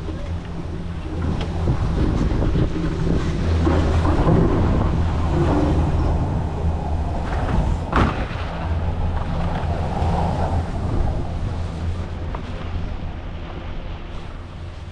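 Wind buffeting a helmet-mounted GoPro microphone on a moving chairlift, over a steady low hum. A single sharp clack comes about eight seconds in.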